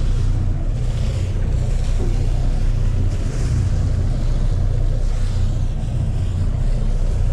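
Wind buffeting the microphone over a steady low rumble and water washing along the hull of a boat at sea.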